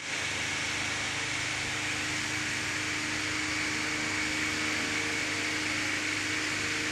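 A running motor's steady hum and hiss, holding several constant tones.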